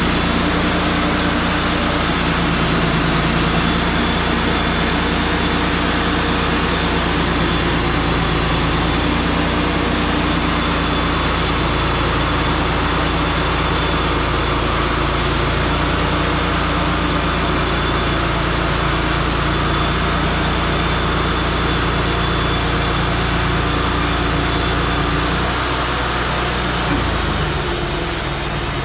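Wood-Mizer LT35 portable bandsaw sawmill running steadily, its engine holding a constant note under a broad hiss. Near the end the engine note changes and the sound eases slightly.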